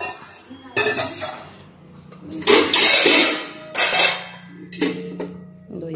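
Stainless steel cooking pots and lids being lifted, shifted and set down, clattering and knocking against each other a few times, loudest about two and a half seconds in.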